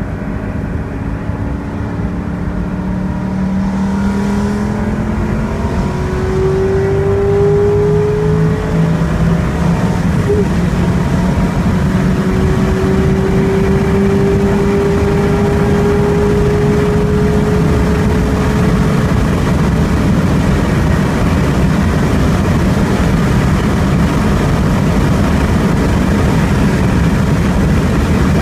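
2003 Ford Mustang Mach 1's 4.6-litre DOHC V8 under full throttle at high speed, heard inside the cabin, its note rising slowly in pitch as it pulls, with a short break about ten seconds in. Wind and road noise grow with the speed until they nearly cover the engine.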